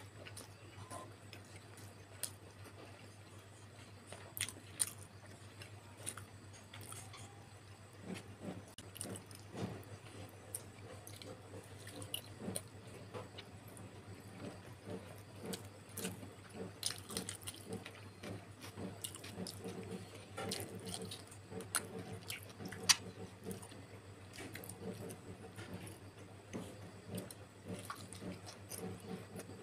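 Close-up chewing of soft steamed pork momos, with wet mouth smacks and sharp clicks. The chewing becomes steadier and more rhythmic about eight seconds in. A steady low hum runs underneath.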